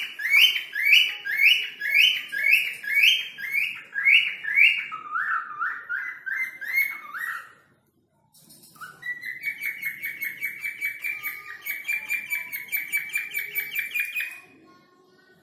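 Cockatiel whistling a string of repeated rising notes, about two and a half a second, that drop lower just past the middle. After a brief break it whistles a fast run of short notes, about five a second, which stops near the end.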